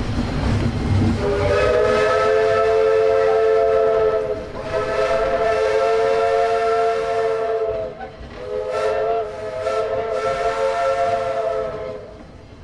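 Walt Disney World Railroad steam locomotive's chime whistle blown three times, each a long chord of several notes lasting about three seconds, after about a second of train rumble.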